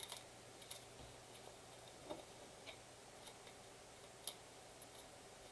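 Faint, scattered clicks and taps of trading cards being handled and stacked, about seven in all, the loudest about four seconds in.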